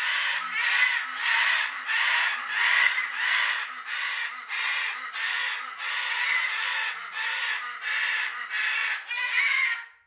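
Macaws screaming: loud, harsh calls repeated about twice a second without a break.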